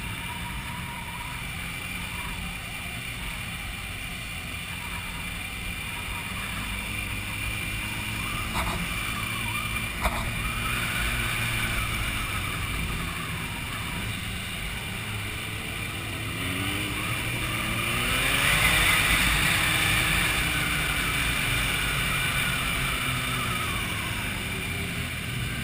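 Sport motorcycles riding in a group: engines running over a steady low rumble of wind on the microphone, with bikes revving and changing gear so the pitch rises and falls, louder in the second half. A single sharp click about ten seconds in.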